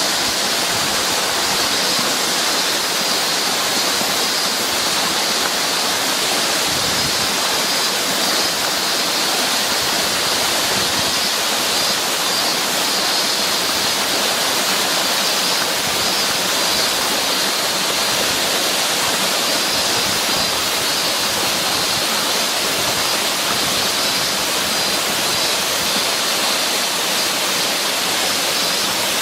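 Waterfall, its water pouring and splashing in a steady, unbroken rush.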